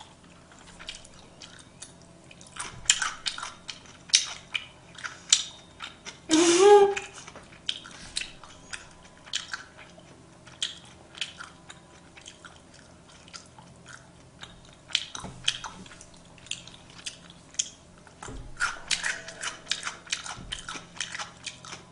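Close-miked chewing and mouth sounds of a person eating sushi: many soft wet smacks and clicks, with a brief hummed vocal sound about six seconds in.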